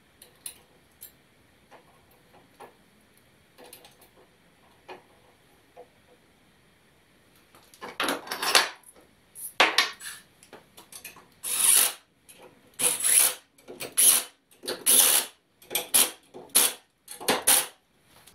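A few light clicks of small metal parts being handled, then a cordless drill running in about ten short bursts over the second half, driving the screws of a steel hold-down bracket.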